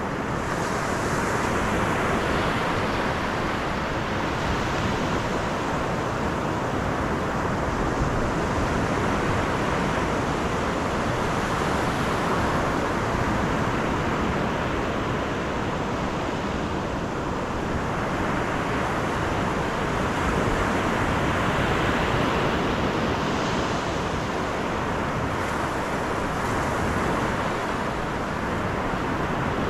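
Steady rushing road and wind noise of a car driving, even in level with only slight slow swells.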